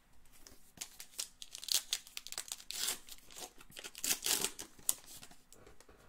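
Baseball card pack wrapper crinkling and being torn open by hand: a run of sharp crackles and tears, loudest in the middle, easing off about five seconds in.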